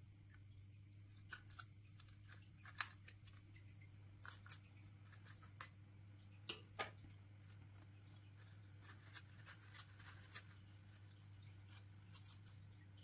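Faint handling noises: scattered soft clicks and crackles of a small clear plastic slotted plant pot and plant being handled by hand, the sharpest about three seconds in and twice around the middle, over a low steady hum.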